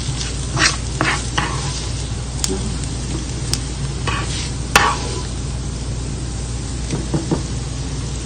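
A metal spoon scraping and clinking in a frying pan several times as fried lemongrass is scooped out of the leftover oil, the loudest scrape a little before the middle, over a steady low hum.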